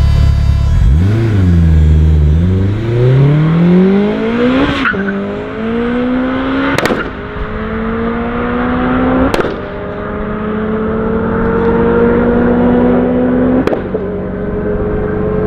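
Honda Civic coupe's four-cylinder engine accelerating hard from a standing start, its pitch climbing steadily in each gear. Four upshifts, each a sharp crack followed by a drop in pitch, the last near the end.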